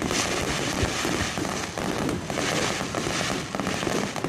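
Fireworks display: many rapid bangs and crackling shells going off in quick succession, with no break.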